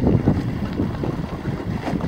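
Mountain bike coasting down a rough forest dirt trail: tyres rumbling over the ground, with frequent short rattles and knocks from the bike, and wind buffeting the chest-mounted camera's microphone.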